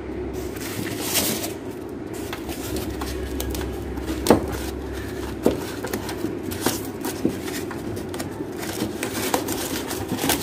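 Hand rubbing and scraping against the taped pipe insulation beneath a wall-mounted split air conditioner's indoor unit, with scattered clicks and knocks over a steady low hum.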